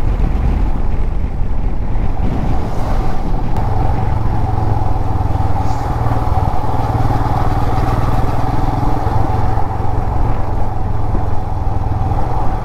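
Motorcycle engine running steadily under way, with strong wind rumbling on the microphone.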